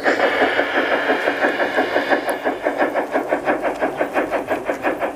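Garden-railway model of a Harz narrow-gauge steam locomotive, 99 0244-6, chuffing in an even rhythm of about five beats a second. A hiss runs over the chuffing for the first two seconds and then cuts off suddenly.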